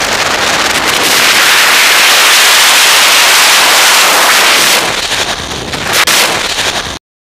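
Wind rushing over the microphone of a skydiver's POV camera: a loud, even roar of air that eases and wavers about five seconds in, then cuts off suddenly just before the end.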